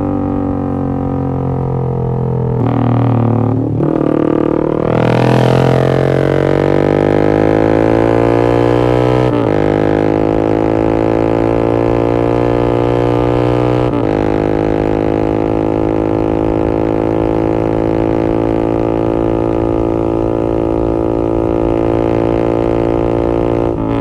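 Yamaha MX King 150's single-cylinder four-stroke engine running through an X1 Speed Racing SH-01 full-system aftermarket exhaust as the bike is ridden. The exhaust note climbs sharply about four to five seconds in. It changes pitch again about nine and a half and fourteen seconds in, then holds a steady drone.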